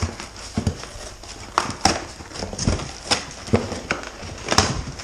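Cardboard packing inserts being handled and pulled out of a box: a string of irregular hollow knocks and thuds with some scraping of cardboard on cardboard.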